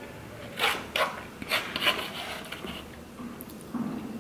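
Spoonfuls of miso soup being sipped and slurped, several short slurps in the first couple of seconds, with a metal spoon scraping and rubbing in a foam bowl.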